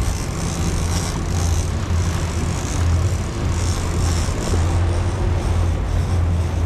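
Twin outboard engines of a World Cat 325CC catamaran running steadily under way, a constant low drone mixed with the rush of water and wind.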